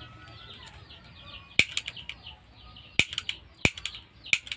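Small birds chirping steadily, broken by several loud, sharp clicks: one about a second and a half in, a quick cluster around three seconds, and more near the end.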